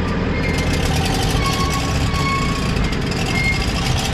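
Riley RMA's four-cylinder petrol engine catching on a tow start, firing rapidly and unevenly about half a second in, over the low steady drone of the towing JCB telehandler's diesel. The car has stood unused for a couple of years and only fires now and then.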